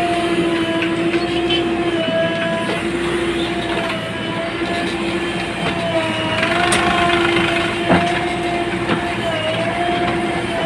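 JCB 3DX backhoe loader's diesel engine running, heard from the operator's cab, with a steady high whine over it that breaks off and dips in pitch a few times. A single sharp knock comes about eight seconds in.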